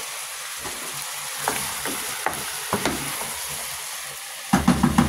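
Stew sizzling in a pot with a steady hiss while being stirred, a utensil clicking against the pot now and then. Near the end comes a quick run of about ten loud knocks against the pot.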